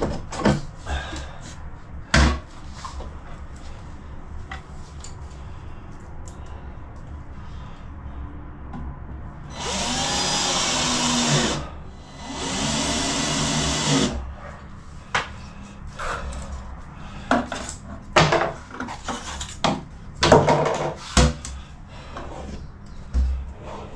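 Cordless drill driving screws into wood in two runs of about two seconds each, its motor pitch rising and falling. Scattered knocks and clatter of wooden drawer parts and panels being handled.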